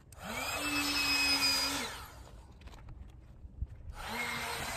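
Handheld electric air pump inflating an air mattress: the motor whines up to speed, runs steadily for about a second and a half, stops, then starts up again near the end.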